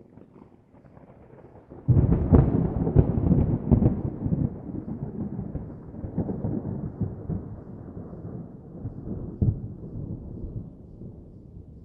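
Thunder sound effect: a faint low rumble, then a loud clap about two seconds in. The rolling rumble that follows has several sharp cracks and slowly fades away.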